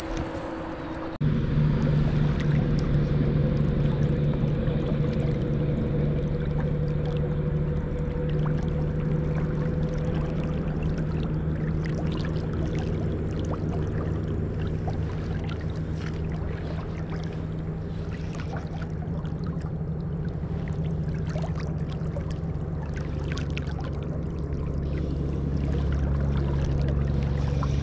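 River current running high, rushing and gurgling around a wading angler's legs, with a steady low rumble and small splashes; it gets suddenly louder about a second in.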